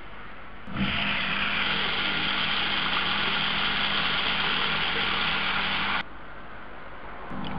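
Bathtub mixer tap turned on, water running from the spout into the tub with a steady rushing hiss and a low pipe hum, then shut off abruptly about six seconds in.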